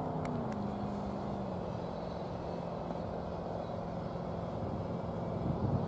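Steady engine-like hum over outdoor background noise, its pitch dropping a little and settling in the first second or two; two faint clicks just after the start.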